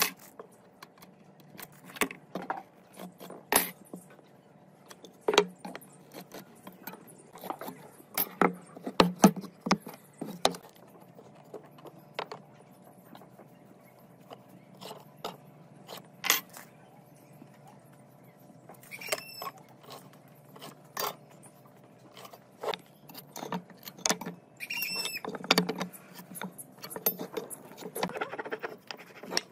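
Irregular clicks, taps and knocks of a steel square, tape measure and pencil being set down and moved against pine boards on a wooden workbench while the boards are marked out. A few short high chirps come in about two-thirds of the way through.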